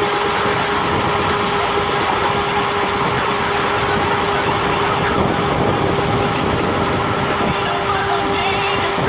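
Nanrobot LS7+ electric scooter riding at a steady speed: wind and road rush with a steady whine.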